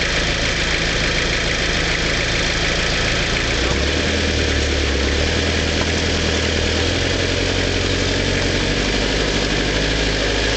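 Frontera 4x4's engine idling steadily, then taking up load with a deeper note about four seconds in as the vehicle moves off along the track.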